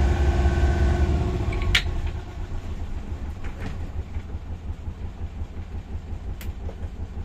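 Twin Volvo Penta diesel engines of a Duchess 29 motor cruiser running; about two seconds in, a click at the helm controls, and the sound drops to a quieter, lower, uneven diesel idle.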